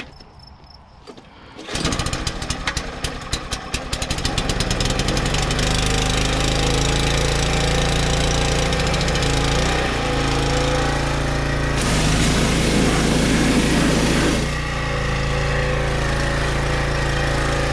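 Small gasoline pressure washer engine starting about two seconds in, firing raggedly at first and then settling into steady running.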